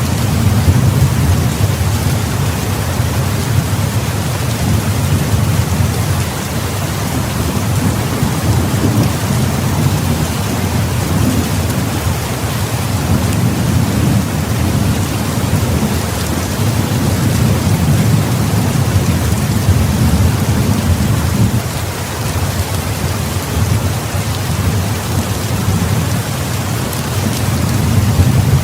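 Heavy rain falling steadily, a dense hiss, with low rolling thunder rumbling underneath that swells and eases every few seconds.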